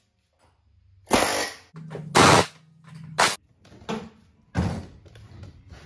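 Pneumatic air hammer with a chisel bit, hammering on the steel ceiling panels of a school bus to shear off rivet heads. It fires in about five short bursts of different lengths, the loudest a little after one and two seconds in.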